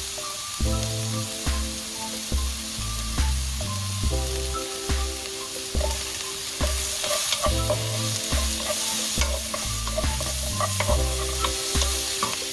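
Sliced onion, carrot and green onion sizzling in oil in a wok while a wooden spatula stirs and tosses them, scraping and tapping the pan. The sizzling grows louder from about halfway through as the vegetables are tossed harder. Background music with a steady beat plays underneath.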